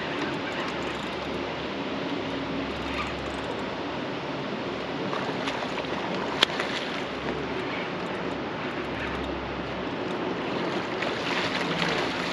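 Steady wind and moving-water noise around the boat, with one sharp click about six seconds in. Near the end, splashing picks up as the hooked fish thrashes at the surface beside the boat.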